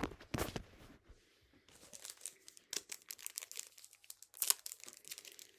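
Crinkling and rustling of a Topps Chrome trading-card pack's wrapper and cards being handled, in irregular crackles. It is louder near the start and again about four and a half seconds in.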